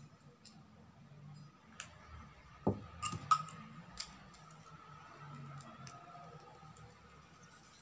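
Light, irregular clicks and taps from hands working a ribbon bow onto the handle of a woven basket, with one louder low knock about two and a half seconds in, over a faint steady hum.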